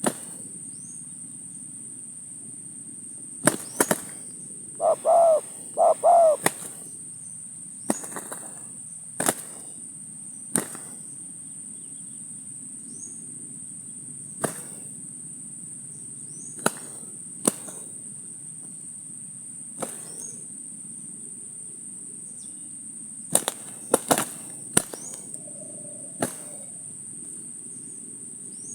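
Spotted dove (tekukur) cooing: two short coo phrases about five and six seconds in, and a fainter coo near the end. Under it runs a steady high insect drone, with scattered sharp clicks.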